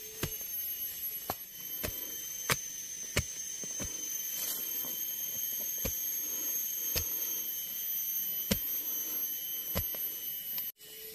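Hand-tool chopping strokes from clearing forest undergrowth, a sharp strike about every two-thirds of a second, over a steady high-pitched drone of forest insects. The sound drops out abruptly near the end.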